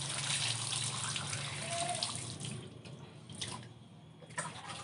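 Water splashing as it is poured over a large freshwater eel and runs onto a wet concrete floor, rinsing the eel; the pour is strongest in the first two seconds or so and then tapers off, with a few faint knocks near the end.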